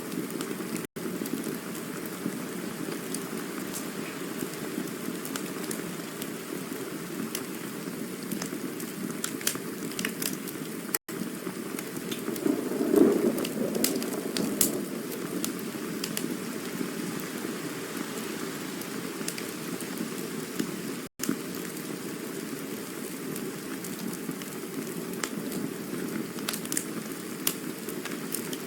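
Campfire burning: a steady low rushing hiss with scattered sharp crackles and pops, swelling louder briefly about halfway through. The sound cuts out for an instant three times, about ten seconds apart.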